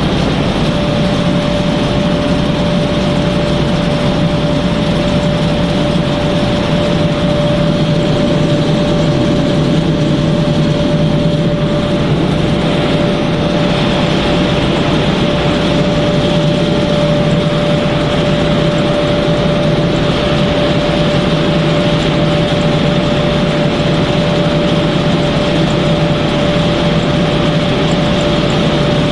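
Snack pellet production line machinery running steadily: a constant mechanical drone with a steady mid-pitched hum throughout.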